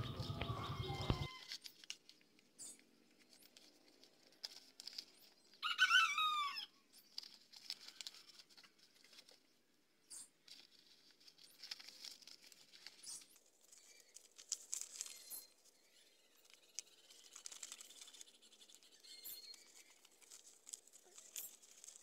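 Faint rustling, crinkling and small taps of a sheet of origami paper being folded and creased by hand. About six seconds in there is one short chirping bird call that falls in pitch, the loudest sound here. A low hum cuts off about a second in.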